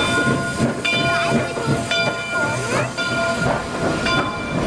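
Steam train running along the rails: a steady rumble and clatter, with stacks of high ringing tones that come and go about once a second.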